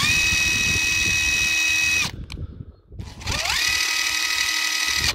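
Panasonic EY75A2 18V brushless impact wrench run free, with no load, in two bursts. First comes a steady high whine for about two seconds that stops. After a short pause a second run starts, its pitch climbing slowly before it holds at speed. The tool is one that runs properly only some of the time, because it is losing power.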